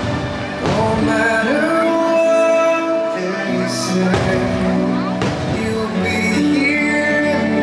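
Fireworks-show soundtrack music with singing, with a few sharp hits about a second in and again around four and five seconds in.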